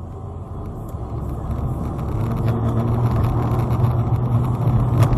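Car driving on a winter road, heard from inside the cabin by a dashcam: a steady low engine and tyre drone that grows louder over the first couple of seconds. A single sharp click comes right at the end.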